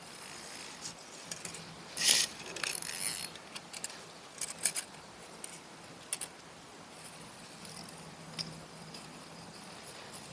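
Fishing tackle being handled during a lure change: a burst of rustling and rattling about two seconds in, followed by scattered light clicks.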